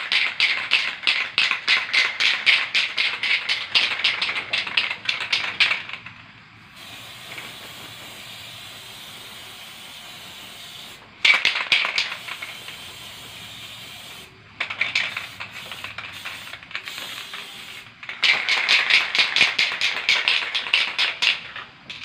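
Aerosol spray paint can (Pilox) spraying in quick sputtering spurts: long runs in the first six seconds and the last four, shorter ones around the middle, with a faint steady hiss in the gaps.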